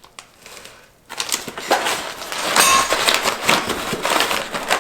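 Packaging being unwrapped: plastic wrap crinkling and rustling with small clicks and knocks of brake kit parts being handled, starting about a second in after a brief lull.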